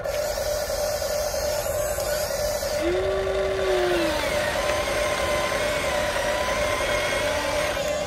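Electric motors of a Huina 1593 1/14-scale RC excavator whining steadily as it works its boom and bucket in dirt, with a brief tone that bends up and back down about three seconds in.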